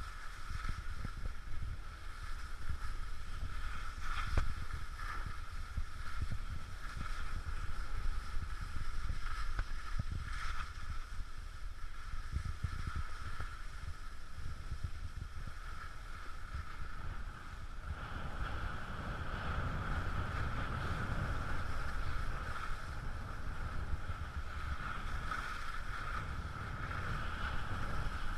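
Wind rushing over the microphone of a moving skier's camera, with the steady hiss of skis sliding on snow; it grows louder about two-thirds of the way through.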